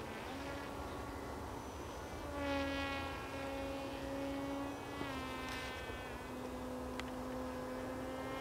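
Radio-controlled model plane's motor and propeller buzzing steadily overhead, a thin insect-like drone whose pitch steps up slightly about two seconds in and drops back about five seconds in.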